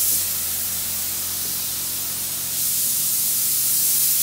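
Paint spray gun spraying automotive primer with a steady airy hiss. A short louder burst comes right at the start, and a longer louder pass begins about two and a half seconds in.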